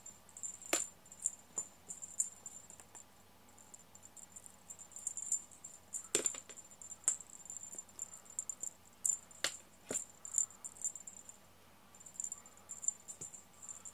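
Insect chirping: rapid, high-pitched pulse trains that repeat in bursts, with a few sharp clicks scattered among them.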